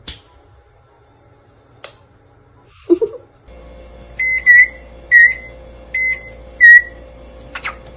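Parrot mimicking an electronic appliance beep: four short, high beeps about a second apart, each dipping slightly in pitch at its end, over a low hum. A single short, loud call comes about three seconds in, before the beeps.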